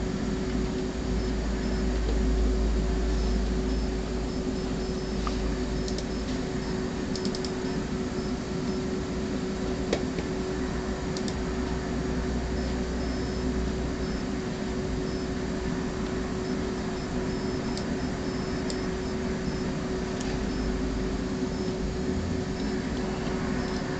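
A steady machine hum with a constant tone and a low rumble, with a few faint clicks and ticks over it.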